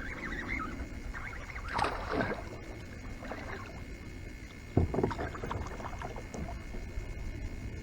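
Irregular water swishes and light handling noises around a small boat, with a sharper knock about five seconds in.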